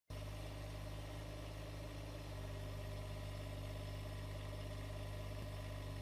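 Kubota mini excavator's diesel engine running steadily at an even speed, a low, constant hum.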